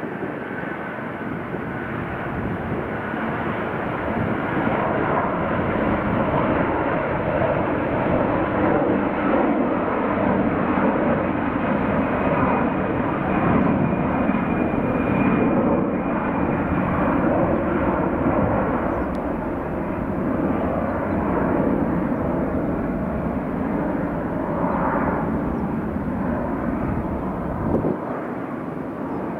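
Airbus A330-343 airliner's two Rolls-Royce Trent 700 turbofans at takeoff thrust as it lifts off and climbs away. The steady jet engine noise grows louder over the first several seconds and then holds.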